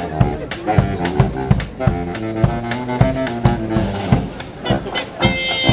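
Dixieland marching band playing a jazz tune: trumpet, clarinet, trombone and saxophones over banjo, bass drum and snare drum keeping a steady beat. A bright, high held note comes in near the end.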